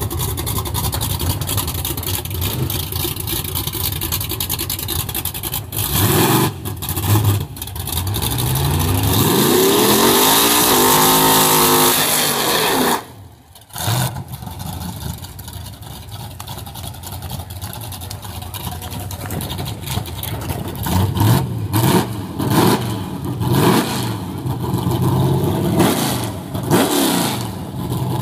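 Drag-racing mini pickup's engine running with a few throttle blips, then revving hard for about four seconds over a loud hiss of spinning tyres in a burnout. After a sudden break it settles to a rough idle with repeated sharp revs near the end.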